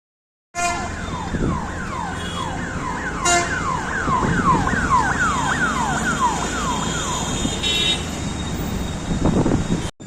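Electronic car alarm sounding a rapid series of falling whoops, about three a second, which stops about seven seconds in, over a steady rush of heavy rain.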